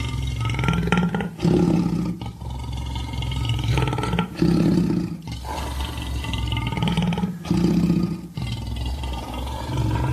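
Monster roar sound effect spliced from lion roars and dinosaur-style roars: a string of deep roars with abrupt cuts between them.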